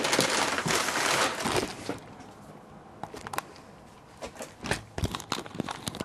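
Plastic packaging crinkling and rustling for about two seconds as it is handled, followed by a string of short, light clicks and taps.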